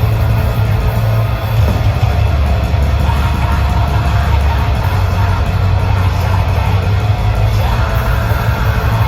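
A blackgaze band playing live at full volume: a dense, steady wall of heavy rock with a strong low end from bass and drums.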